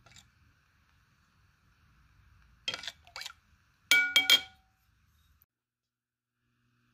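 Metal spoon striking the side of a bowl while stirring soaked semolina: two light taps a little before three seconds in, then a quick run of ringing clinks about four seconds in.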